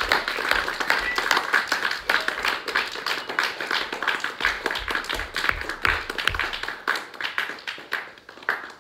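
A small group of listeners applauding, the clapping thinning out and dying away in the last second or two.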